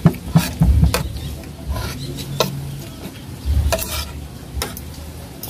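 A spoon and fork scraping and clinking against a plate while eating: scattered sharp clinks, most of them in the first second, with a few dull knocks.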